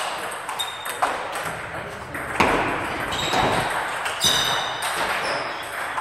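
Table tennis balls clicking off bats and tables from several rallies at once, an irregular patter of sharp pings in a large hall.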